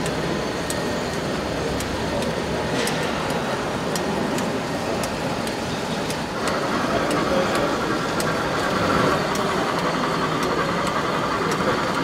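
Exhibition hall ambience: a steady wash of crowd noise and background voices, with a higher hum joining about six seconds in.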